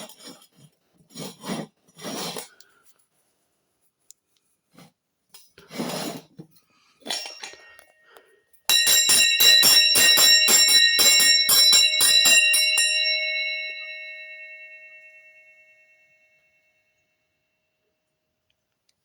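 A handbell shaken rapidly, its clapper striking about five times a second for roughly four seconds. It is then left to ring out, the tone dying away over about three seconds.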